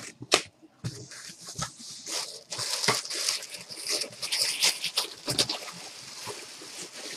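Thin white wrapping rustling and crinkling as hands pull it open around a boxed jersey, a dense crackle of small clicks. Two sharp knocks from handling the box come right at the start.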